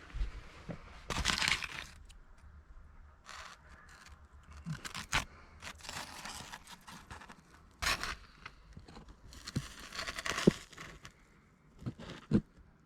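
Hand-work noises: irregular bursts of scraping and tearing with a few sharp clicks and knocks, as of plastic trim or foil being worked by hand.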